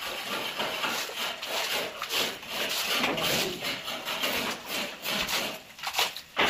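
Bore pipe being worked up and down by hand in a water-filled borehole, with muddy slurry sloshing and splashing around it and a rough, repeated scraping and rubbing in uneven strokes.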